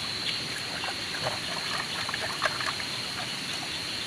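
River water trickling over rocks, with a few small wet clicks and splashes as fish are handled, over a steady high-pitched tone.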